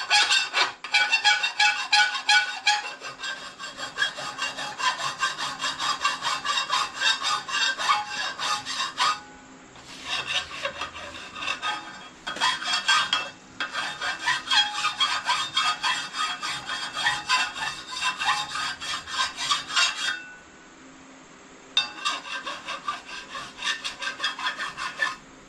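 Fast rasping strokes of a hand file against a steel wheel rim, smoothing down a sharp burr on the rim. The rasping stops briefly three times: about 9 s, 12 s and 20 s in.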